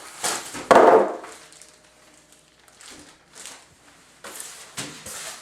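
Styrofoam packing and cardboard box being handled: one loud scrape about a second in, then a few quieter knocks and rustles.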